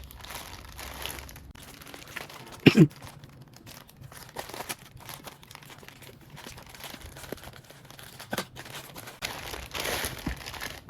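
A parcel being opened by hand: plastic packaging crinkling, rustling and tearing in irregular bursts, with one brief loud falling squeal about three seconds in.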